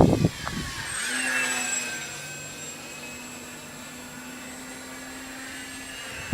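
Electric RC plane's brushless motor and propeller whining in flight overhead. It is loudest about a second in, its pitch dropping a little as the plane passes, then it holds at a steady, fainter drone.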